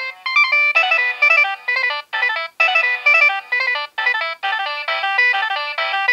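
Nokia 6820a mobile phone playing a polyphonic ringtone through its small loudspeaker: a quick, busy melody of bright synthesized notes with no low notes, broken by a few brief pauses.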